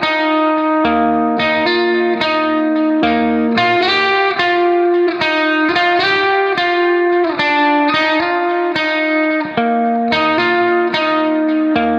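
Background music: a plucked guitar melody, note following note at an even pace.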